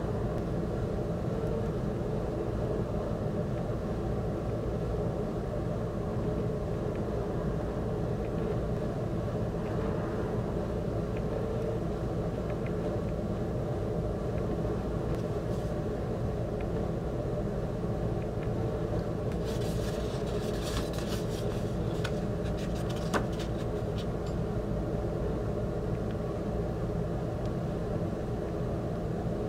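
A steady low rumbling hum throughout. About two-thirds of the way in there is a few seconds of paper rustling and crinkling as a photo booklet and prints are handled, ending in one sharp tick.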